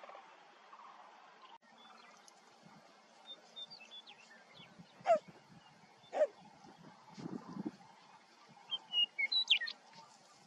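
Birds chirping: scattered short high chirps, two sharp falling calls about five and six seconds in, and a quick cluster of chirps near the end.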